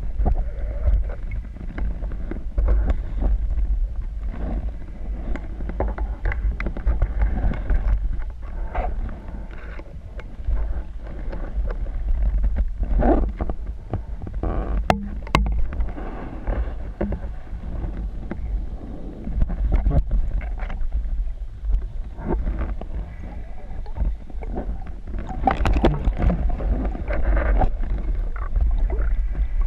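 Underwater camera audio: a steady low rumble of water moving around the camera, with scattered muffled knocks and clicks.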